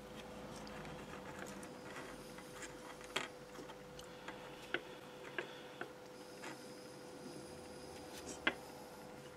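Small sharp clicks and taps from a bare USB meter circuit board and its metal USB plug being handled and set down on the bench, about half a dozen, the loudest near the end, over a faint steady hum.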